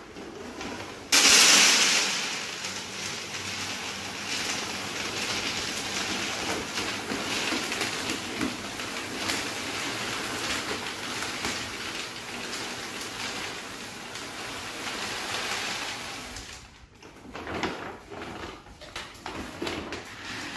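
Dry dog kibble pouring from a bag into a Gamma2 Vittles Vault plastic storage container: a steady clatter of pieces that starts suddenly and loudest about a second in and stops about sixteen seconds in. Then a few softer, scattered rustles and clicks.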